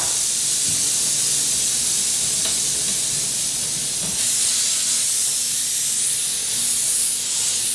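Light N Easy steam cleaner jetting a steady loud hiss of steam onto a glass fridge shelf, lifting hard-water spots; the hiss gets a little stronger about four seconds in.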